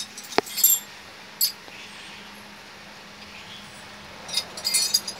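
Small metal engine parts clinking as they are handled on a work surface. There is a sharp click about half a second in, a few light clinks, then a quick run of clinks near the end.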